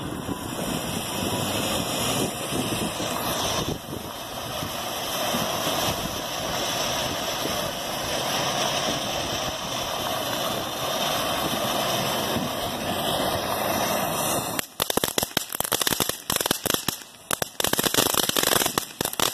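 Ground fireworks: a steady hiss from a burning fountain, which breaks into rapid, irregular crackling pops about fifteen seconds in.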